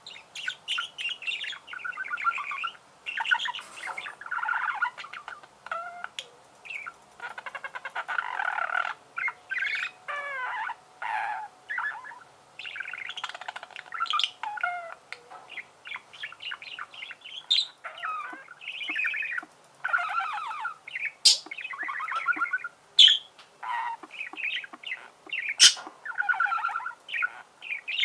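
Budgerigars warbling and chattering almost without pause, with a few sharp high squeaks scattered through the second half.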